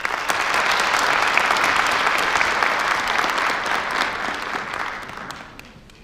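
Large audience applauding, starting suddenly and fading out over the last second or so.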